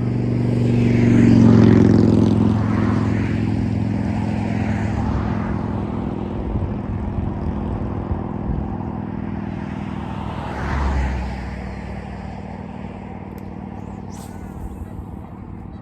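An engine passing by, loudest about a second and a half in, then slowly fading away, with a smaller swell near eleven seconds.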